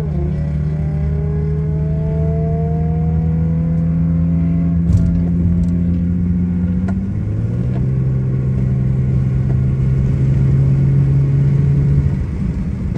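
Infiniti G37x's V6 with aftermarket intakes and exhaust accelerating. The engine pitch climbs steadily, drops at an upshift about seven seconds in, climbs again, and eases off near the end.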